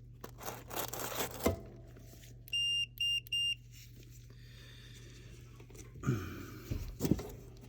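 Three short high beeps from a multimeter's continuity tester as the probes touch the strip heater terminals, with clicks and knocks of handling before and after over a steady low hum.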